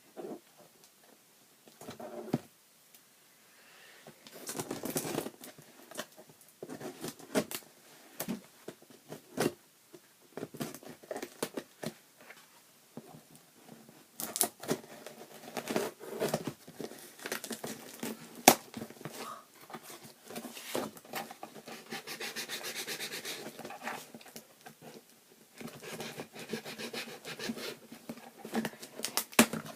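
Wrapping paper and packing material crinkling, rustling and tearing as a parcel is unwrapped by hand, with scattered light clicks and taps and one longer drawn-out rip about three-quarters of the way through.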